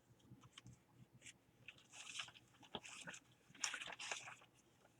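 Faint crinkling and rustling of paper scraps being handled, with a few light clicks; the crackly bursts come about two seconds in and again near four seconds.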